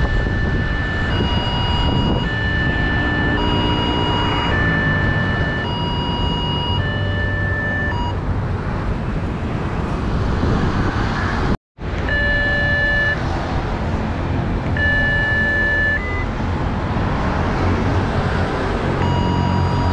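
Indonesian railway level-crossing alarm, two electronic tones alternating about once a second over a steady background rush. It cuts out for an instant near the middle, then comes back at a slower, gappier pace.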